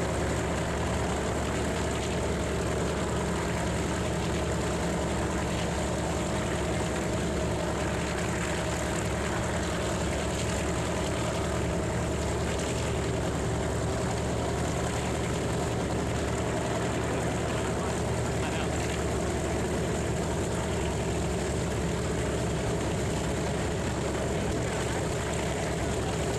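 Warbird radial piston engines idling steadily as they warm up on the ramp, a constant low, many-toned rumble with no change in pitch.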